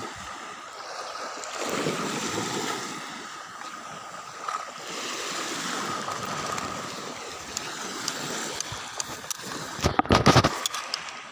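Sea water lapping and splashing around a small fishing boat, with a brief loud burst of splashing and knocks about ten seconds in.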